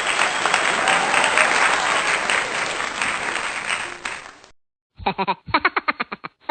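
Applause from a crowd, a dense clapping haze that stops about four and a half seconds in. After a short silence, a different sound begins: a rapid run of short pitched pulses.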